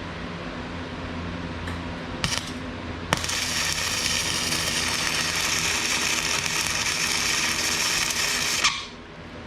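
Flux-core wire welder arc: a brief sputter, then a steady crackling weld for about five and a half seconds that cuts off suddenly. A steady fan hum runs underneath.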